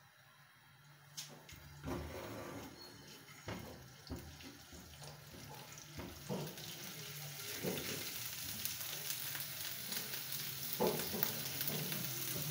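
Garlic frying in hot oil in a nonstick pan, stirred with a silicone spatula: the sizzle starts faint and builds steadily louder through the second half, with a few soft knocks of the spatula against the pan.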